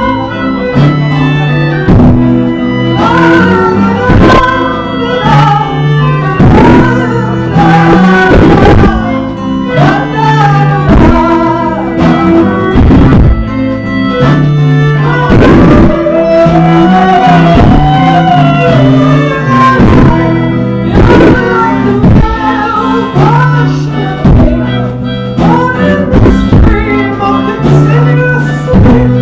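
A live band playing, with regular drum hits, a bass line and guitar under a wavering lead melody that slides between notes.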